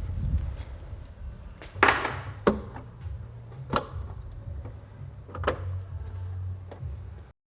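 A few separate knocks and clacks over a low hum; the sound cuts off abruptly near the end.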